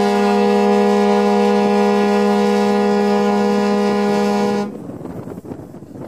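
A large passenger ferry's horn sounding one long, loud, steady blast in a chord of several notes. It cuts off abruptly about four and a half seconds in, leaving only a low background rumble.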